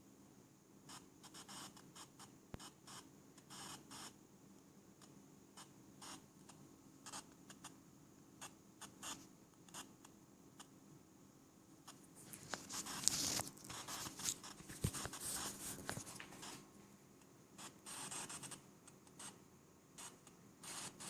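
Static crackle and hiss from the earcups of an AKG T940 wireless headset, coming in irregular scratchy bursts that thicken into a louder stretch a little past the middle. It is the noise the headphones give out once the base station has shut down and stopped transmitting.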